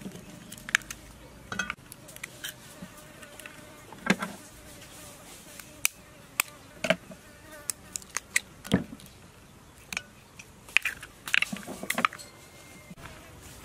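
Eggs being cracked one after another on the rim of a stainless steel bowl: sharp taps and shell cracks at uneven intervals. An insect buzzes faintly underneath.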